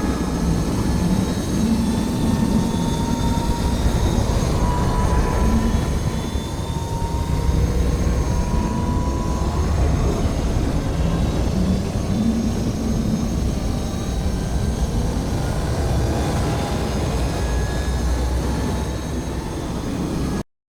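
Star Wars UT-60D U-wing starfighter engine boost sound effect, looped: a steady, loud, deep engine noise with a faint whine drifting through it. It cuts off abruptly just before the end.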